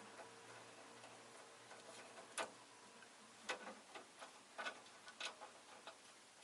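Faint, irregular light taps and clicks, about one a second, from a rosy-faced lovebird moving and pecking about its cage.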